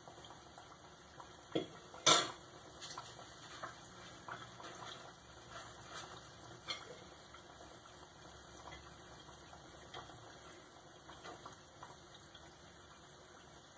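Metal utensil clinking against a small saucepan of hot oil where battered Oreos are deep-frying, with one sharp clink about two seconds in and lighter taps after. The oil bubbles faintly underneath.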